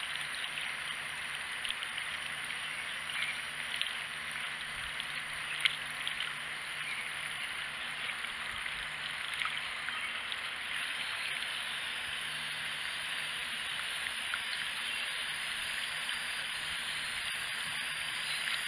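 Water running steadily from a garden hose into a plastic watering can, with a few faint clicks over it.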